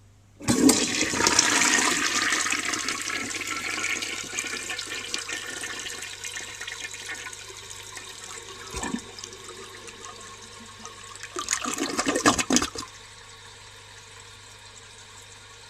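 A 1952 Eljer Duplex toilet flushing from a dry bowl, with water from its siphon jet and vortex jet. Water rushes in suddenly about half a second in and tapers off over several seconds, with a second loud rush near twelve seconds, then a quieter steady hiss.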